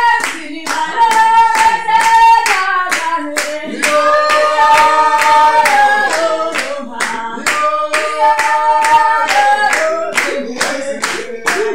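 Singing with steady rhythmic handclapping, the claps keeping time under long held sung notes.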